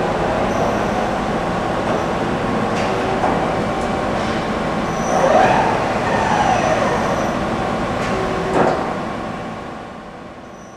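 Okuma & Howa Millac 5VA CNC vertical machining center running, a steady machine hum with a whine that rises and then falls in pitch about halfway through, and a few short clicks. The sound fades out near the end.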